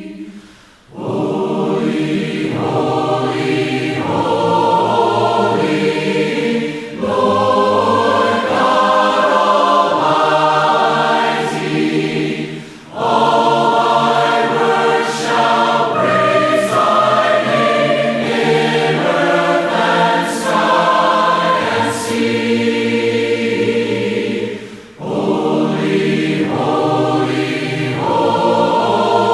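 A choir singing a hymn in several parts, phrase by phrase, with short breaths between phrases.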